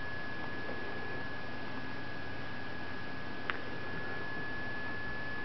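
A steady hiss with a thin, steady high-pitched electrical whine, and one faint click about three and a half seconds in.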